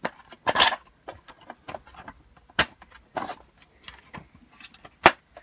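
Bolts and parts of an R2-D2 droid's body and leg mount being handled: scattered clicks and knocks, the sharpest one near the end.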